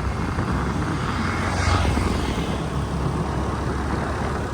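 Motor scooter running along as it is ridden: a steady engine hum under wind rushing over the microphone.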